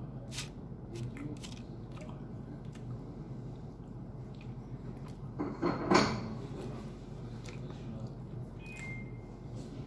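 A person eating a peeled boiled egg: soft chewing with scattered mouth clicks and smacks over a steady low hum, and one louder brief sound a little before six seconds in.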